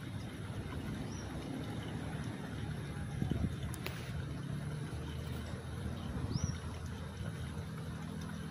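Outdoor background: a steady low rumble, two short high bird chirps about a second in and again about six seconds in, and a single sharp click just before four seconds.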